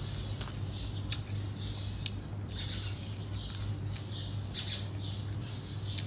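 Close-up eating sounds: wet chewing and lip smacks from a mouthful of papaya salad with raw shrimp, coming as irregular short smacks about once a second, with a few sharp clicks. A steady low hum runs underneath.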